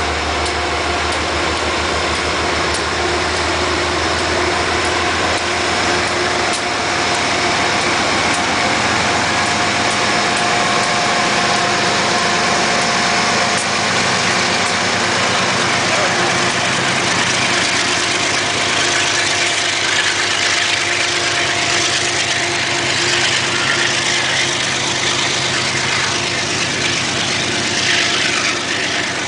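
Amtrak GE Genesis P32AC-DM diesel locomotive passing close by, its engine running with a steady whine. From a little past twenty seconds in, the whine fades under the rushing wheel-on-rail noise of the passenger cars rolling past.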